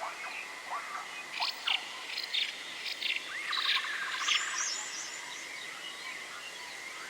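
Birds chirping: short rising calls and a few rapid trills over a steady high-pitched hiss.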